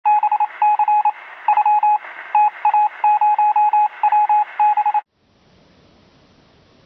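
Film-leader countdown sound effect: a run of short, uneven electronic beeps on one mid pitch over a hiss, cutting off sharply about five seconds in. Faint steady hiss follows.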